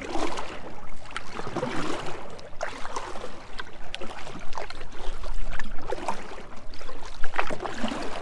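Water splashing and gurgling around a canoe under paddle strokes against the river current, in irregular surges, with a few sharp clicks and a brief low rumble about five seconds in.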